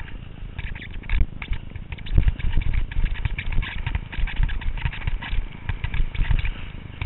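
Edges scraping and chattering over snow during a descent, recorded from a helmet-mounted GoPro Hero, with wind rumbling on the camera housing.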